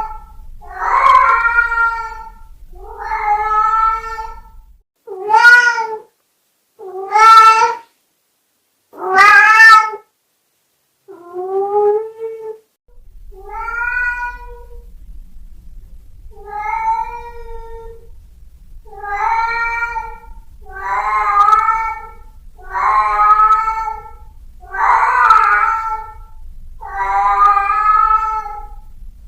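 Domestic cat meowing plaintively over and over: a long series of drawn-out meows, about one every two seconds. A few in the middle are louder and sharper.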